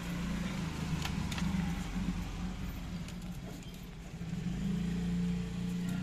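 Low hum of a motor vehicle engine running, dipping a little past the middle and swelling again, with a few faint clicks.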